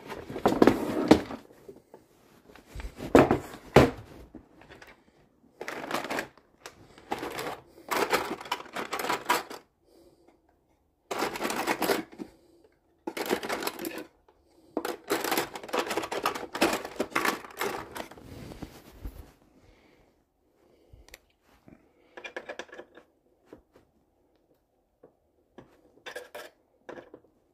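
Rummaging through a wooden box of tools and small parts: hard objects clattering and rattling in bursts a second or two long, thinning to a few scattered clicks near the end.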